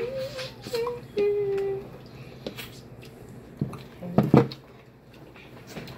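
Clatter at a seafood-boil table: a few sharp knocks from a speckled enamel stockpot being tipped and handled over the food, the loudest about four seconds in. Brief hummed voice sounds come in the first two seconds.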